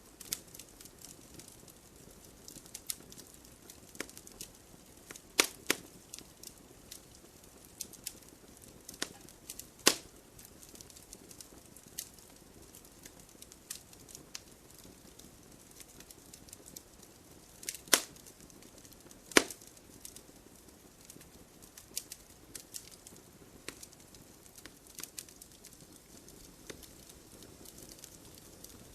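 Campfire crackling: irregular sharp pops and snaps of burning wood over a faint steady hiss, with a handful of louder pops scattered among the small crackles.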